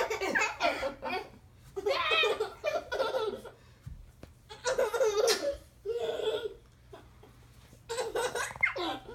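Laughing and giggling in about five short bouts, with quiet gaps between them.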